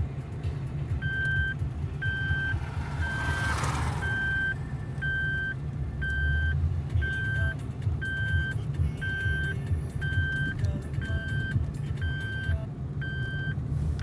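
Vehicle cabin noise while driving: a steady low engine and road rumble, with an electronic warning chime beeping about once a second, each beep about half a second long. A brief rush of noise passes about three seconds in.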